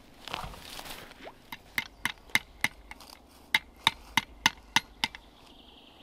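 Rustling, then a string of about a dozen sharp taps, roughly three a second, made by hands working on an irrigation pipe's T-connection.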